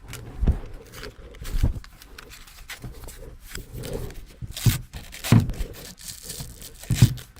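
Hook-and-loop sanding discs being pressed onto and peeled off a random orbital sander's pad, giving short ripping and rustling sounds with handling knocks, five sharp ones in all. The discs' backing has worn so they barely grip the pad.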